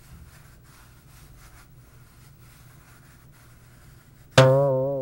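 Faint scraping of a Ouija planchette sliding over the board. A little after four seconds in, a sudden loud, low musical sting with a wavering tone starts and fades away.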